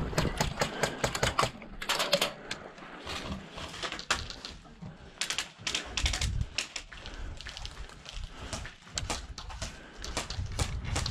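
Airsoft guns firing in several bursts of rapid clicks, strings of shots on full auto.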